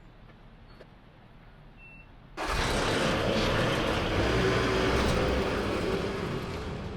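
An engine running. It cuts in suddenly about two and a half seconds in after a quiet stretch, and starts to die away near the end.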